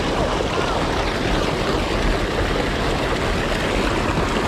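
Steady rushing noise of moving river water.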